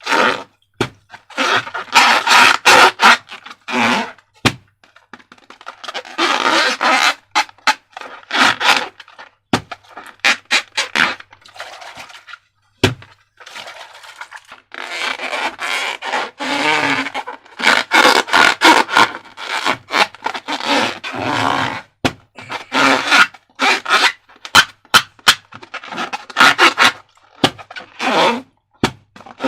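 Slime being worked by hand, with irregular sticky scraping and squelching strokes and sharp clicks and crackles.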